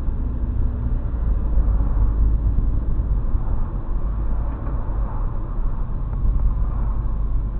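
Steady low rumble of a car driving along a city street, engine and tyre noise heard from inside the cabin.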